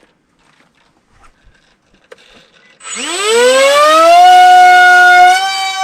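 Emax Eco 2306 brushless motor and propeller spinning up for the wing's auto launch: about three seconds in, a loud whine rises steeply in pitch, then holds steady.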